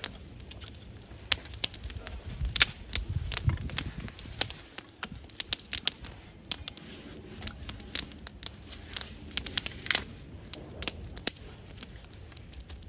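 Small campfire of paper and twigs burning, crackling with irregular sharp pops, over a short low rumble about three seconds in.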